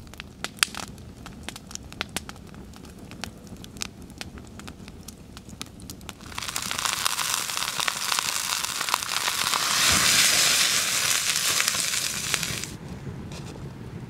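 A wood fire crackling with scattered sharp pops. About six seconds in, a beef steak goes into a hot pan and sizzles loudly for several seconds, then the sound drops back near the end.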